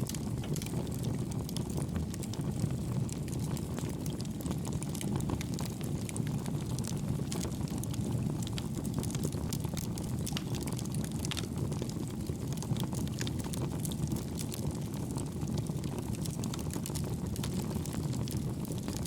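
Wood fire burning in a homemade pail-can wood gas stove: a steady low roar with scattered small crackles throughout.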